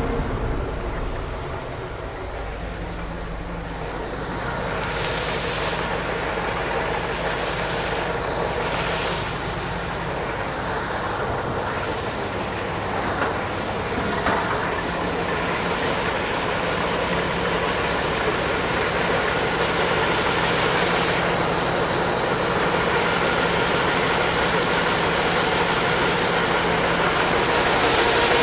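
Combine harvester running steadily while harvesting soybeans, with a constant engine hum and a high hiss that swells and fades several times.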